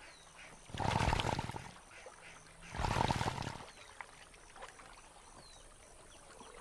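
Male yacare caiman bellowing twice: deep, rough roars about a second long each, about two seconds apart. This is a courtship display of strength aimed at females.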